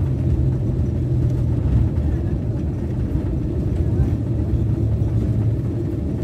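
Steady low rumble of a Boeing 737's engines and airflow heard from inside the cabin during landing. A low engine hum sinks a little in pitch through the rumble.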